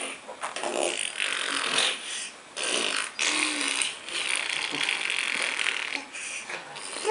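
Imitation fart noises, buzzy and rasping, made by a child and her father. There are several in a row with short gaps between them, some brief and some drawn out for a second or more.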